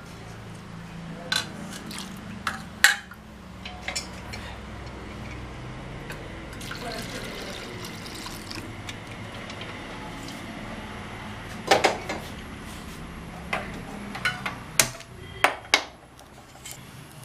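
Cooked lentils (dal) are poured from an aluminium pressure cooker into a steel bowl. A steel ladle and the vessels make sharp metallic knocks and clanks, a few early on and a cluster in the last few seconds as the cooker is set back down.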